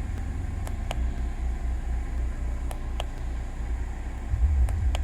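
Jeep Wrangler JL engine idling steadily as a low rumble, with idle revs lowered by the throttle controller's economy mode. Several faint, sharp clicks are heard over it.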